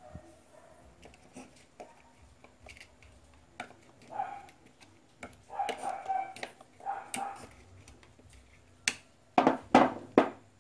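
Scattered clicks and knocks of the plastic housing and metal motor parts of a small electric blower being handled and fitted by hand, with a cluster of louder knocks near the end.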